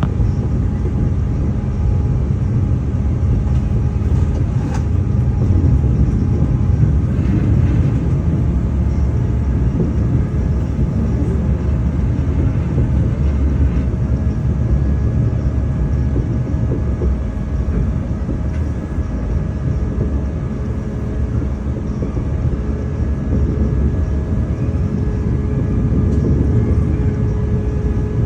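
Steady low rumble of a moving vehicle, with a few faint steady tones over it.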